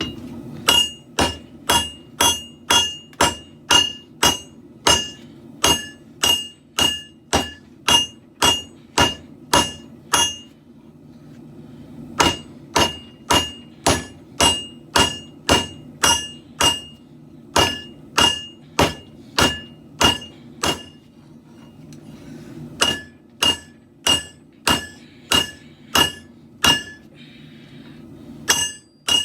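Hand hammer striking a steel katana blade on an anvil during forging, about two ringing blows a second, in three runs with short pauses about a third and two thirds of the way through. A steady low hum continues underneath.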